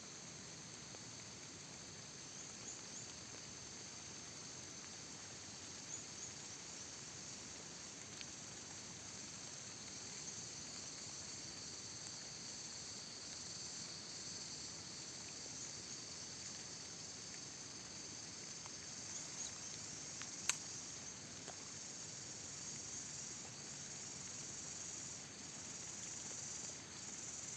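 Insects chirring in a steady, high-pitched outdoor chorus, with one sharp click about twenty seconds in.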